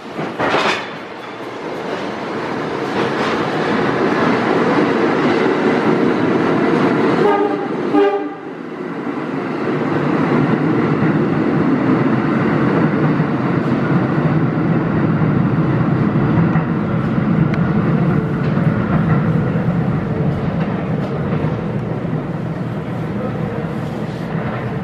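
An R32 subway train pulls out of the station. A short burst of noise comes near the start and a brief horn blast about eight seconds in, then the heavy rumble and wheel clatter of the train accelerating away, which slowly fades as it enters the tunnel.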